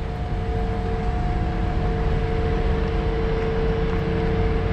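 ALCO RS32 diesel locomotive engine running steadily: a low rumble with a steady hum over it.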